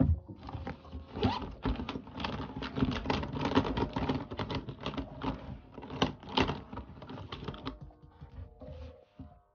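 Pens and other stationery clattering and rustling inside a canvas zippered pencil case as a hand rummages through it, with many small clicks; it dies away about eight seconds in.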